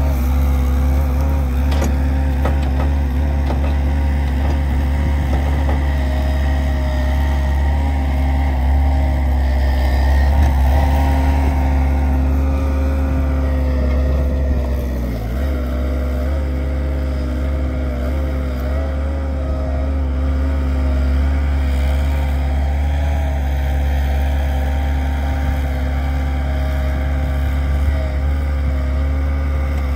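Diesel engines of an Avant 640 compact loader and a Lindner Lintrac 75 tractor running steadily while the loader works its bucket loading manure. The engine note dips briefly about halfway through.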